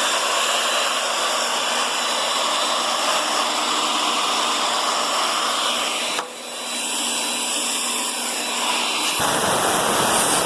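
Magnetic drill's electric motor running steadily under load, drilling a pilot hole into a broken head bolt. Its sound drops off sharply about six seconds in, then builds back up.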